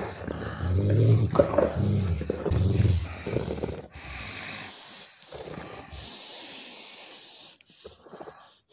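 Cane Corso growling in play while mouthing a person's sleeved arm and hand, not in aggression. There are several low growls in the first four seconds, then quieter sounds.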